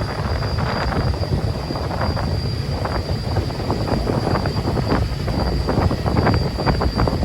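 Steady low rumble of a ferryboat under way, with wind gusting over the microphone.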